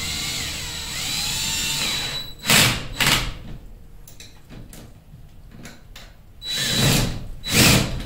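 Cordless drill driving bolts on a garage door torsion spring's centre bracket: the motor whine rises and falls in pitch for about two seconds, then two sharp knocks follow. Another pair of loud knocks or clatters comes near the end.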